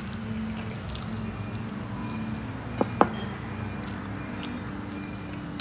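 Eating by hand: fingers squishing and mixing crumbly pittu and pork curry on a plate, with chewing. There are faint scattered ticks and two sharp clicks close together about three seconds in, over a steady low hum.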